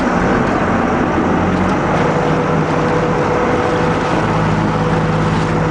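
Sportfishing boat's engine running with a steady hum, over a loud rush of churning water beside the hull.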